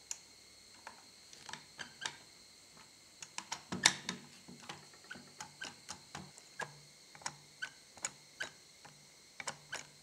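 Plastic housing parts of a Festool TS55 track saw clicking and knocking as they are handled and fitted together: irregular light taps a few times a second, the loudest about four seconds in.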